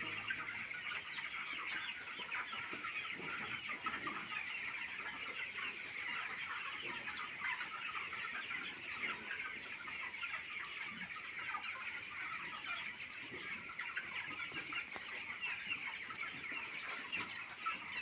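A flock of chicks peeping continuously, a dense chatter of many short high chirps, with occasional lower clucks mixed in.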